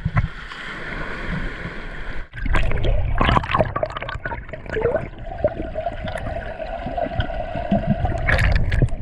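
Seawater sloshing, splashing and gurgling close to the camera, with a break about two seconds in and a steady droning tone through the second half.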